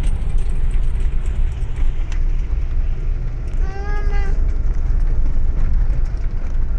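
Car being driven, heard from inside the cabin: a steady low rumble of engine and road noise. About midway a single short pitched tone sounds for under a second.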